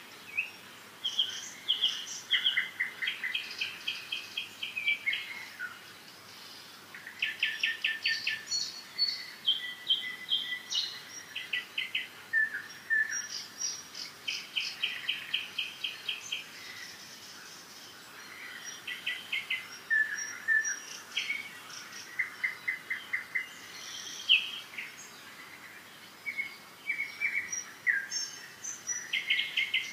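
Songbird singing: varied phrases of fast trills and repeated high chirps, broken by a few short pauses.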